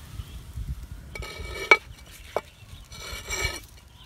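A lid scraping and clinking on the rim of a clay cooking pot as it is set in place: two grating passes, with a sharp knock in the middle that is the loudest sound.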